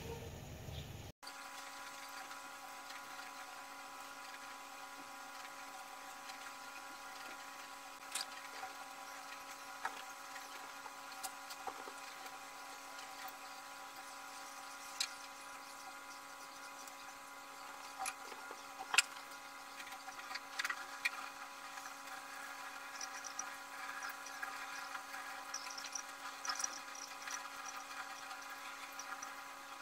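A steady machine hum made of several fixed tones, with a few scattered sharp clicks, the loudest about 19 seconds in.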